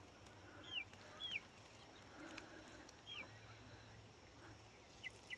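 Faint bird calls: short, high notes that fall in pitch. There are three spaced single calls, then a quick pair near the end.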